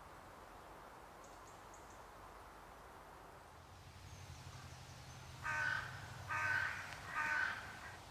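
A crow cawing three times in quick succession, each caw about half a second long. Faint high bird chirps can be heard before it.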